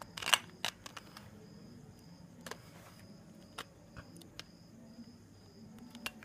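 Scattered small sharp clicks and taps from a plastic car-shaped keypad mobile phone being handled in the hands, several in quick succession in the first second and the rest spread out, over a faint steady hum.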